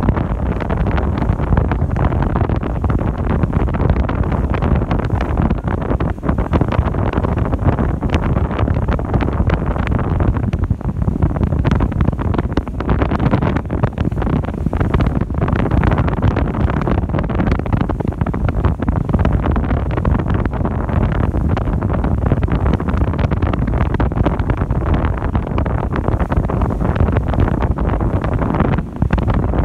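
Strong wind rushing and buffeting the microphone aboard a cruising sightseeing ship, over a steady low rumble of the vessel under way, with a brief lull near the end.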